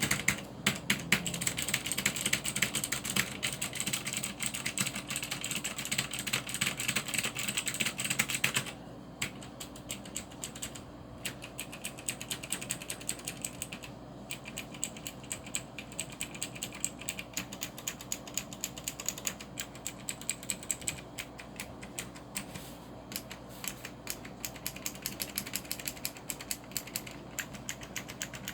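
Typing on a Cherry G80-3800 mechanical keyboard with clicky Cherry MX Blue switches: fast, dense keystrokes at first. About nine seconds in they turn quieter and sparser, and go on that way.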